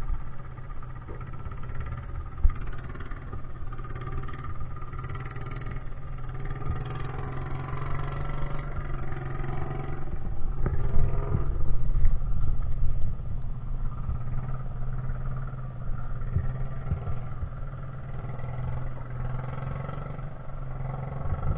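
An engine running steadily with a constant low hum, swelling a little in loudness about halfway through.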